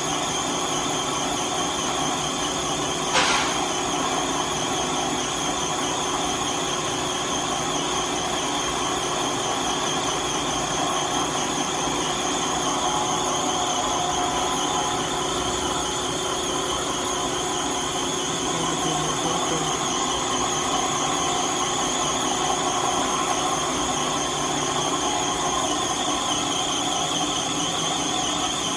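Lathe running steadily while boring a rod: a constant machine hum with several steady high tones over it. One sharp click about three seconds in.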